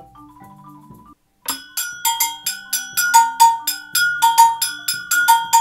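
Agogo bell played with a wooden stick: a quick rhythmic pattern of sharp strikes alternating between its two metal cone bells, one higher and one lower, each note ringing briefly. The strikes start about a second and a half in.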